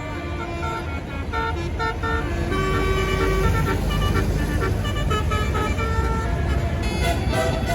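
Bus basuri telolet horn playing a tune of short stepped notes, one pitch after another, over the low running of the bus engine.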